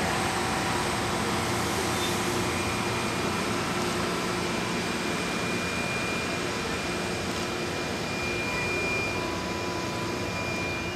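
LORAM rail grinder's diesel engines running steadily, with a thin high-pitched whine over the engine noise from about two seconds in.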